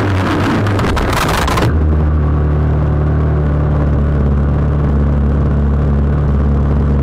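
Pit bike crash: a harsh scraping slide across the track for about the first second and a half, which cuts off suddenly. Then the pit bike's single-cylinder engine keeps idling steadily as the bike lies in the gravel.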